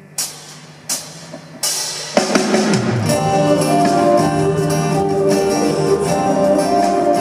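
Rock band playing live at a soundcheck. Three sharp hits come about 0.7 s apart, then drum kit and guitars come in together about two seconds in and keep playing steadily.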